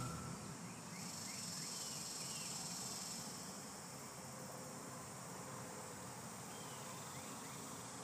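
Faint, steady chirring of insects, a little louder for the first couple of seconds, with scattered small high chirps.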